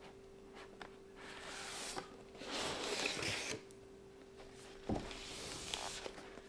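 Cardboard box being opened and handled: two stretches of rustling and scraping, then a light knock about five seconds in, followed by fainter rubbing.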